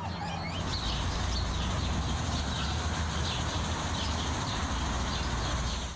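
Outdoor ambience: a steady low rumble with small birds chirping again and again at a high pitch. A last whimper from a wolf pup fades in the first half second.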